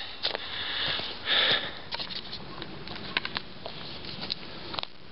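Two short, breathy sniffs close to the microphone, then a scatter of light clicks and rustles.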